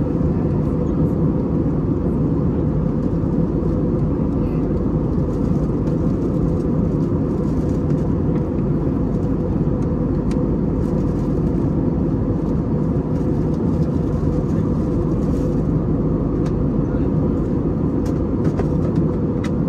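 Steady cabin noise inside an Airbus A320neo in flight: the drone of its Pratt & Whitney PW1100G geared turbofan engines blended with the rush of air past the fuselage, with a faint steady hum.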